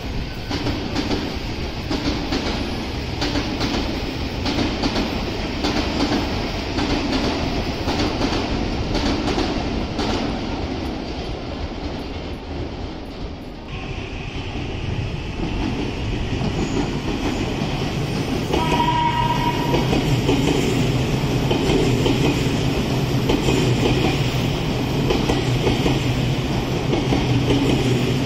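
Odakyu Line electric commuter trains running by: a train rattles past with its wheels clattering over rail joints. Then another approaches, sounds one short horn blast about two-thirds of the way in, and passes close with a steady low hum and wheel rumble.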